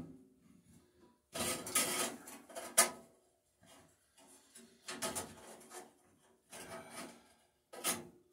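Hands working on a Dunlap bandsaw's upper wheel and new blade: scraping and rubbing in a few short bursts, with sharp metal clicks at the start, just under three seconds in, and near the end.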